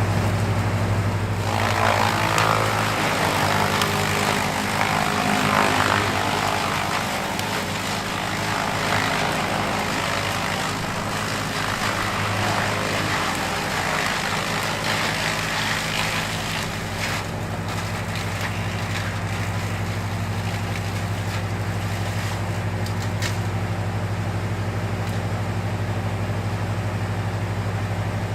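Woodchipper chewing through a large tree branch over its steady engine drone: dense shredding and crackling of wood for the first half, a few sharp cracks later on, then the machine running on with no load.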